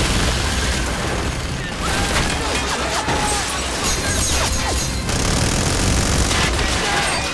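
Film sound effect of a rotary minigun firing one long continuous burst, with booms and impact hits on a vehicle, under a music score.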